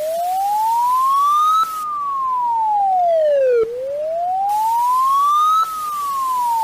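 Emergency alarm siren wailing: a single clean tone slides up for about two seconds and back down for about two seconds, over and over, loud and steady in level.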